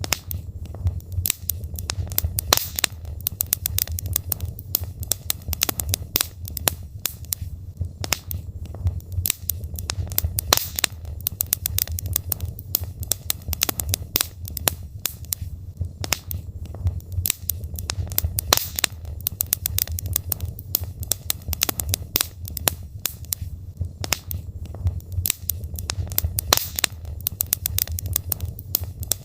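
Wood fire of burning logs in a fireplace, crackling with frequent irregular pops and snaps over a steady low rumble.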